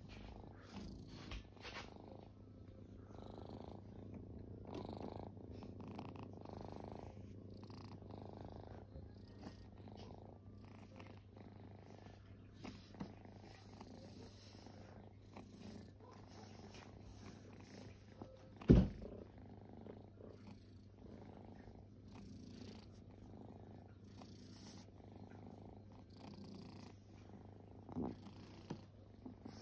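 Domestic cat purring as it is stroked, a steady low rumble that swells and eases in slow waves. A sharp bump about two-thirds of the way through is the loudest sound, with a smaller one near the end.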